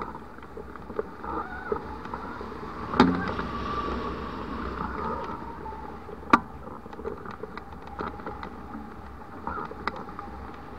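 Wind rushing over a hang glider and its wing-mounted camera in flight, with a faint wavering whistle and two sharp knocks, about three and six seconds in.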